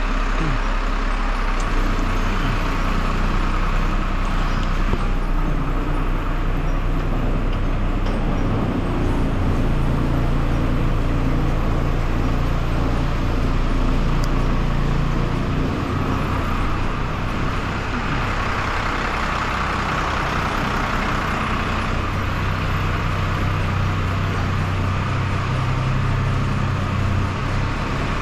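Truck engine running steadily, the truck that carries a hydraulic crane, its engine note shifting a few times.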